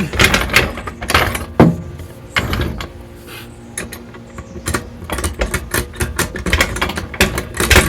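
Hydraulic floor jack being pumped, with clicking and clanking from the handle and lifting arm and a sharp knock about a second and a half in, the clicks coming faster in the second half. A faint steady hum runs underneath.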